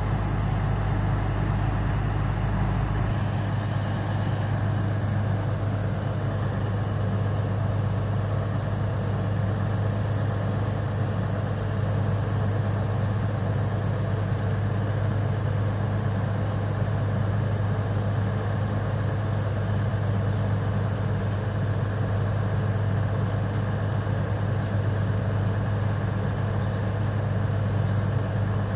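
Alishan Forest Railway DL-40 diesel locomotive's engine idling with a steady low hum. A deeper rumble underneath drops away about three seconds in.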